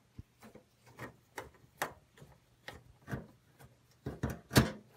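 Phillips screwdriver loosening the screws that hold a PC power supply to the back panel of the steel case: a string of irregular small clicks and scrapes as the screws turn, the loudest pair about four seconds in.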